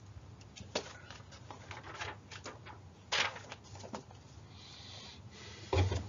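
Small handling noises in a small room: scattered light clicks and knocks, a short rustle about five seconds in, and a heavier thump just before the end.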